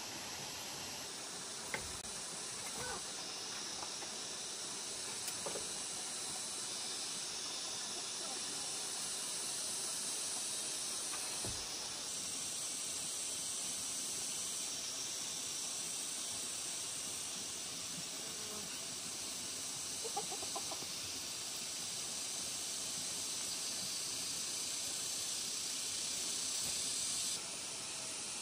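Chickens clucking faintly a few times over a steady high hiss.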